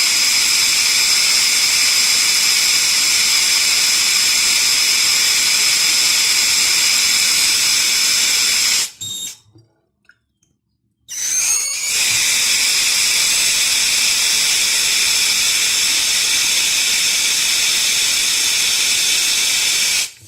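Water tap running at full flow, a steady rushing hiss with a high whistling tone. It is shut off about nine seconds in, turned back on a couple of seconds later with a brief rising whine as it opens, and runs steadily again until it is shut off at the end.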